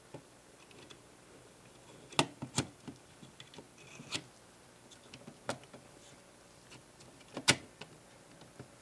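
Plastic parts of a scale-model Ferrari F40 being pressed and clicked together by hand as the interior tub is fitted onto the chassis. There is a scattering of sharp clicks and taps, with a loud pair about two seconds in and the loudest click near the end.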